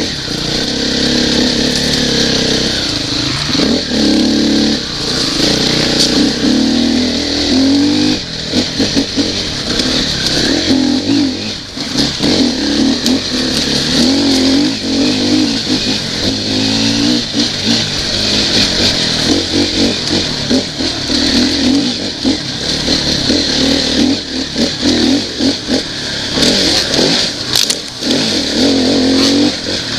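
Dirt bike engine revving up and down in short bursts as it rides a rough, rocky trail, with a steady hiss over it and scattered knocks as the bike jolts over stones.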